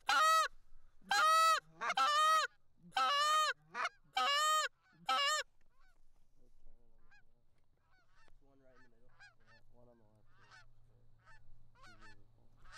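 Canada geese honking: about seven loud, close honks, each rising then falling in pitch, over the first five seconds, then fainter, shorter honks from geese farther off.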